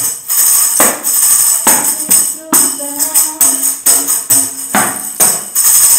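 Upbeat Christian worship music with a tambourine jingling over it and a strike on the beat a little more than once a second.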